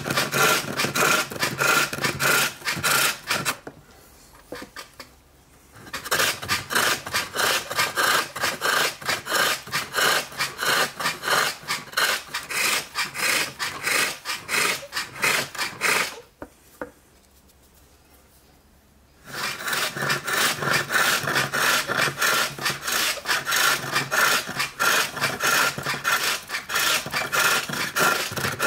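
Hook tool cutting a spinning wooden bowl blank on a pole lathe: a rasping sound of wood being shaved, in quick repeated strokes. It stops twice for a few seconds, about four seconds in and again just past the middle.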